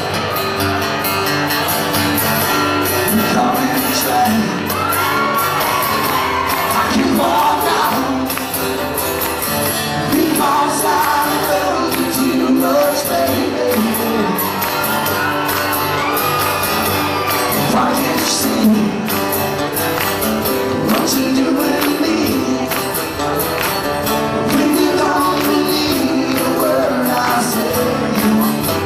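Live country song: a male singer with acoustic guitars strumming.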